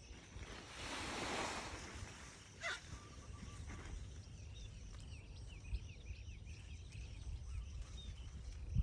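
Outdoor rural ambience with a low wind rumble and a broad gust of noise about a second in. Small birds chirp in quick succession from about halfway through.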